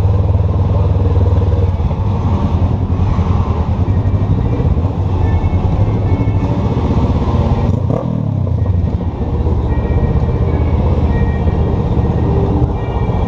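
Honda CB500F parallel-twin engine running close up as the bike rolls slowly at low revs. About eight seconds in the revs dip briefly and then climb again.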